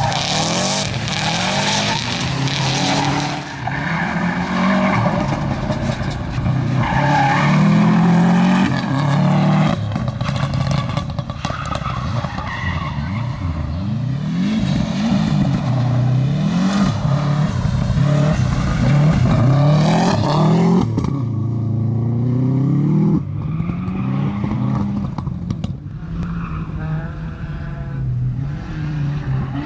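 Rally cars driven hard on a loose dirt stage, first a Subaru Impreza. The engines rev up and drop back again and again through gear changes and lifts, with tyre and gravel noise. The sound changes abruptly a couple of times as one car gives way to the next.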